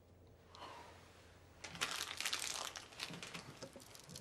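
A plastic snack wrapper crinkling as it is crumpled, a dense run of sharp crackles starting about a second and a half in and tailing off near the end.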